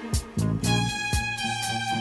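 Background music with a steady beat; a bass line and held notes come in about half a second in.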